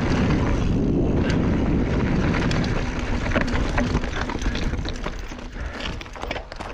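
Mountain bike rolling over a rocky dirt trail, picked up by a chest-mounted action camera: wind rumbling on the microphone, tyres crunching over gravel, and many sharp clicks and rattles from the bike over the stones. The rumble eases over the last couple of seconds as the bike slows.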